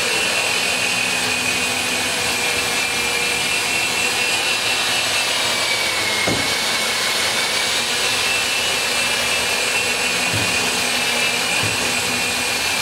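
Sunnen line hone running, its honing mandrel spinning through an engine block's main bearing bores to true them and tighten the main bearing clearance. A steady high whine over a hiss, dipping slightly in pitch about six seconds in, with a few faint knocks.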